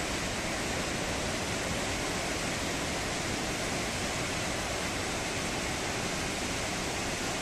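Ézaro waterfall on the Xallas river: water falling down a tall rock face into a pool, a steady, even rush.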